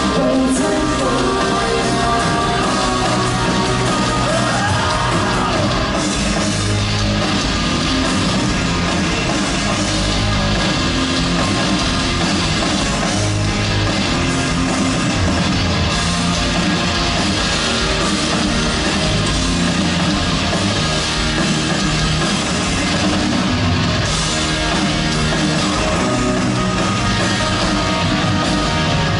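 Three-piece rock band playing live: electric guitar, bass guitar and drums at full volume, with a steady beat.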